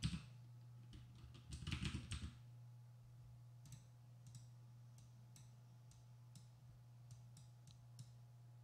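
Computer keyboard typing in a short quick run about two seconds in, followed by scattered single mouse clicks, all faint over a steady low electrical hum.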